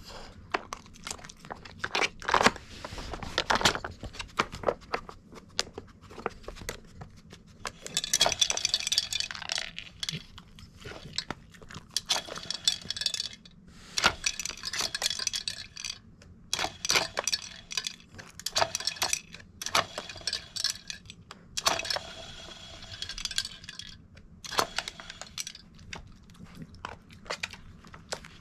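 Mame-shiba dog working a plastic treat-puzzle toy: irregular clacks and clattering rattles of the toy and the kibble inside as it is nudged, with spells of quick rattling and some crunching.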